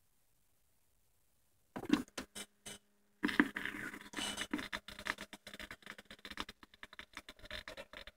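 Stylus on a vinyl record's lead-in groove: a few sharp clicks about two seconds in, then steady surface crackle and scratching until the song starts.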